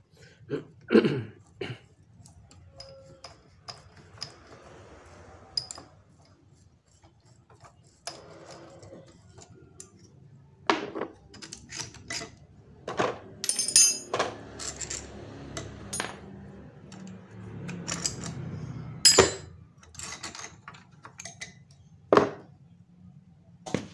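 Metal clinks, taps and scrapes of hand tools and an improvised puller on a piston whose pin is seized in the connecting rod from oil starvation, as the piston is worked free. Irregular sharp clicks and knocks, loudest about a second in and again around the middle and near the end.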